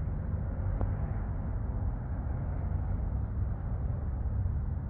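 Steady low rumble of outdoor background noise, with one faint click about a second in.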